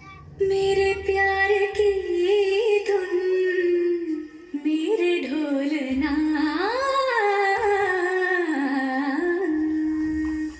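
Recorded song with wordless singing: one voice carries a melody of held notes that bend and slide in pitch, with a couple of short breaks.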